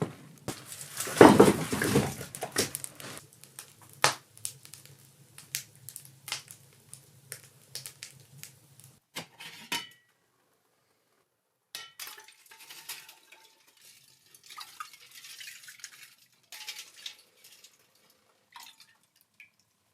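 Cookware and utensils clinking and knocking in irregular clicks and clatters while food is prepared, with a louder, longer clatter about a second in and a brief break halfway.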